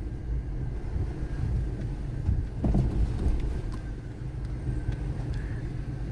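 Vehicle driving over a rough dirt road, heard from inside the cabin: a steady low rumble of engine and tyres, with a louder bump or knock about halfway through.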